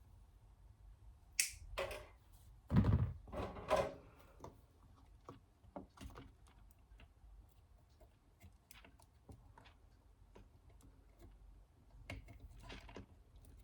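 A series of small clicks, taps and knocks from handling hard parts during a repair. The loudest knocks come about three seconds in, followed by scattered light ticks and a few more clicks near the end.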